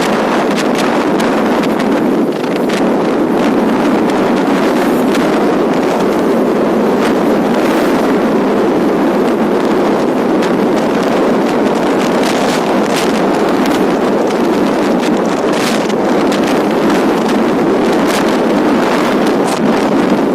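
Steady, loud wind rushing over the microphone, with a few faint clicks here and there.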